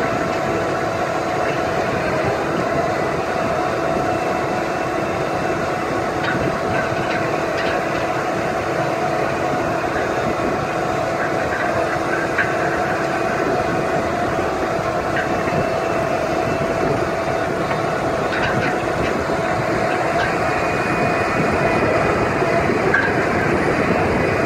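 ROPA Maus beet cleaner-loader working a sugar beet clamp: its pickup, cleaning rollers and conveyors rattle steadily with tumbling beet over the running engine, with a steady mechanical whine throughout.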